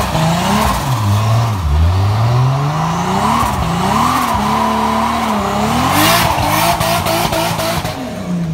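Toyota Tundra pickup with a swapped-in 2JZ straight-six doing a burnout: the engine revs rise and fall again and again while the rear tyre spins and squeals on the pavement. About six seconds in comes a run of sharp cracks, and the revs drop away near the end.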